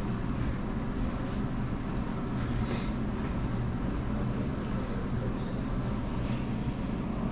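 Steady low rumble of indoor room noise with a hum, with a brief hiss just under three seconds in.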